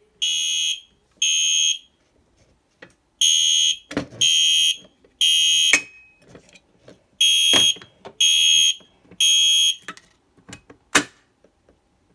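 Wheelock MIZ mini fire alarm horn sounding in the code-3 temporal pattern: three short high-pitched blasts, a pause, then three more, repeated. The horn stops near the end, and a few sharp knocks and clicks fall between the groups and after them.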